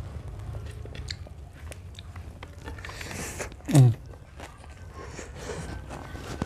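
Close-up mouth sounds of biting and chewing crunchy raw food, with many small wet clicks. About three and a half seconds in there is one brief, loud sound that falls in pitch.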